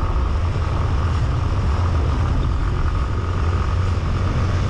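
Motorcycle riding along at a steady speed: engine running and wind rumbling on the bike-mounted camera's microphone, level and unbroken.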